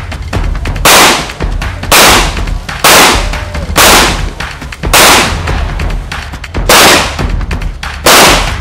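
Semi-automatic pistol shots, about eight sharp reports spaced roughly a second apart, each ringing out briefly. A steady low bass line from a background music track runs underneath.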